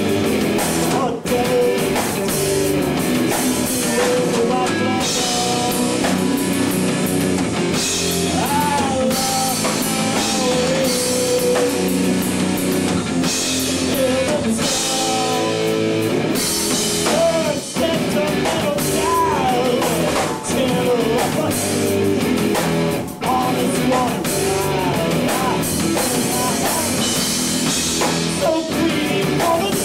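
Rock song with a drum kit, guitars and a singing voice, playing steadily throughout.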